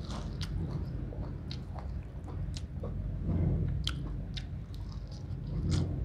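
A person chewing raw beef tripe with the mouth close to the microphone, making many short, sharp smacking clicks at an irregular pace, with a steady low hum underneath.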